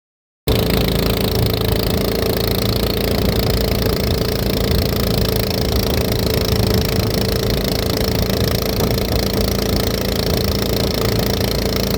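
A small engine running steadily at a constant speed. It starts abruptly about half a second in.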